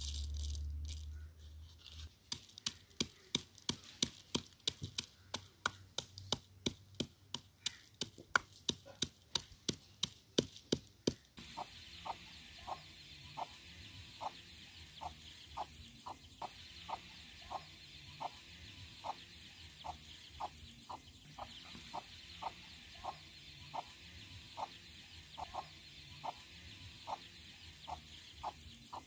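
A wooden pestle knocking into a wooden mortar as cardamom pods are pounded, sharp even strikes at nearly three a second that stop about eleven seconds in. After that a hen clucking, short calls about one and a half a second, over a steady hiss.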